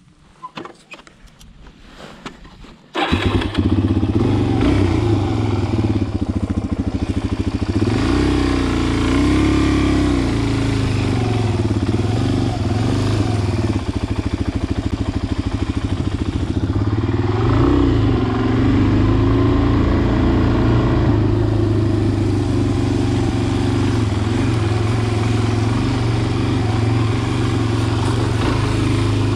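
Dirt bike engine starting abruptly about three seconds in, then running as the bike rides off, its pitch rising and falling with the throttle a couple of times. Before it, a few small clicks and rustles of riding gloves being handled.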